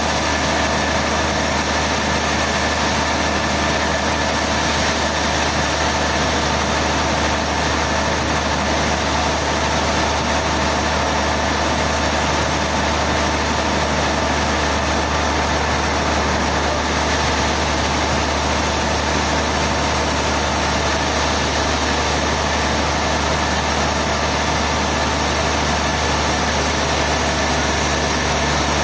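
A sawmill's engine running steadily at constant speed, with no cutting or impacts heard.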